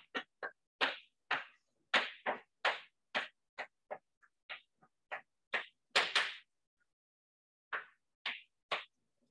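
Chalk writing on a blackboard: a quick run of short, sharp taps and scrapes, with one longer scrape about six seconds in and a pause of about a second before a few last strokes.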